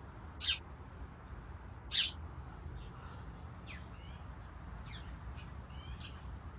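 Backyard songbirds calling: two louder, sharp high calls about half a second and two seconds in, followed by a run of fainter short chirps.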